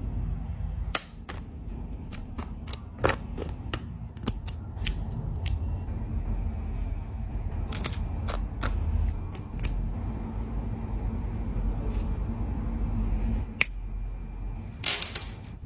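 Irregular sharp clicks and ticks of small sheet-metal puzzle pieces being handled and fitted together, over a low steady hum.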